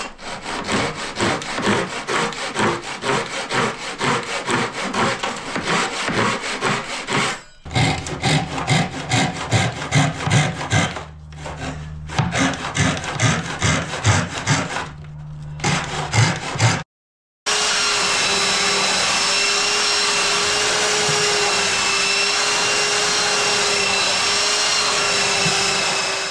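Japanese pull saw cutting wood in quick, even strokes, flush-trimming a plinth edge, with one short pause. After a brief break, a belt sander runs steadily with a whining tone, smoothing the cut flush.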